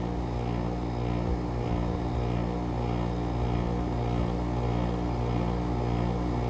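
GE 5050 BTU window air conditioner running, its Samsung rotary compressor humming with a steady throb about twice a second under the fan's whoosh; the compressor is warmed up, its oil thin enough to lubricate freely in 15°F cold.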